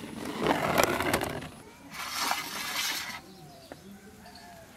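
Clatter and clinks of a steel plate and small clay bowls being handled, followed about two seconds in by a brief rustling hiss. Birds chirp faintly through the quieter last part.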